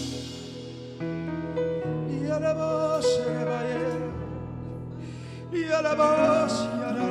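Slow live worship music: sustained keyboard chords over held bass notes, with a wordless voice gliding over the top.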